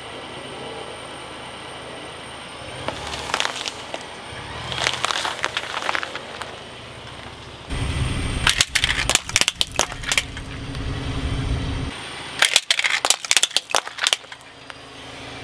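A car tyre rolling onto objects on asphalt and crushing them. First a few crunching cracks as apples in a wire basket are squashed, then quick clusters of sharp cracks and snaps, twice, as a small white toy toilet breaks apart under the tyre.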